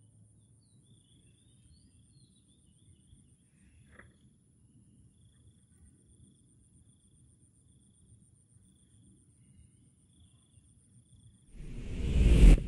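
Faint night ambience: scattered bird chirps and a steady high insect trill over a low rumble. About a second before the end, a loud whoosh swells up and cuts off suddenly.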